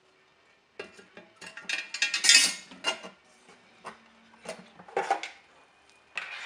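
Hard plastic and metal parts of a flight data recorder's tape unit being handled and fitted together: a cluster of clattering clicks and scraping about a second in, loudest around two seconds, then a few separate knocks and another thump near the end.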